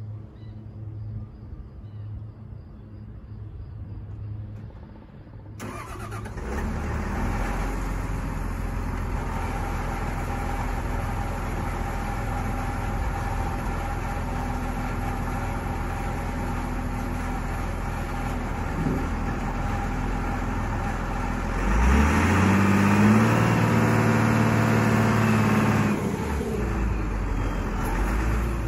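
CAT IT28G wheel loader's diesel engine starts about five seconds in and runs steadily, then revs up for about four seconds near the end as the bucket is raised on the hydraulic lift arms, before settling back.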